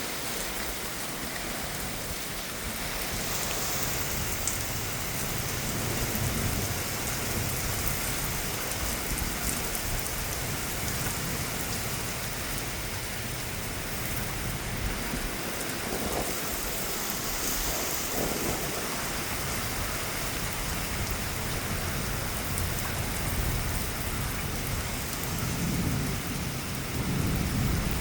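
Steady heavy rain pouring down in a severe thunderstorm, with strong wind gusting onto the microphone as low rumbling swells about a few seconds in and again near the end.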